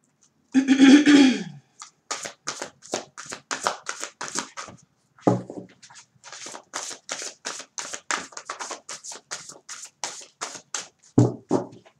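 A large tarot deck being shuffled by hand: a fast run of soft card slaps and flicks, about four a second, with two heavier knocks of the deck against the table. A brief louder sound comes about half a second in.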